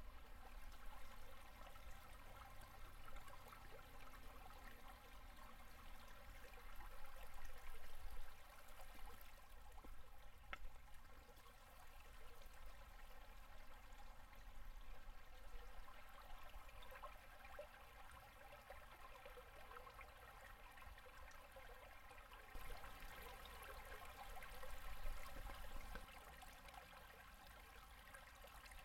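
Faint running water of a shallow mountain river at low winter flow, gurgling over and under its ice and around boulders. It swells a little louder about three-quarters of the way through, then settles.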